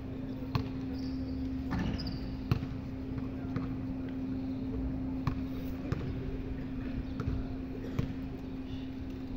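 Basketball bouncing on an outdoor concrete court: scattered, irregular thuds a second or so apart, over a steady low hum.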